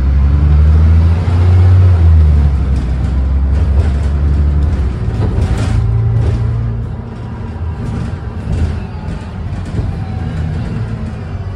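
Diesel engine of Stagecoach South bus 18188, heard from inside the passenger saloon as the bus drives along. It pulls hard through the first five seconds or so, then eases off, with clicks and rattles from the bus body and fittings.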